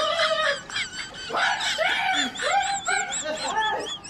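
A man's high-pitched, wordless yelps and shrieks of excitement, a quick string of short rising-and-falling cries: a fan cheering a win.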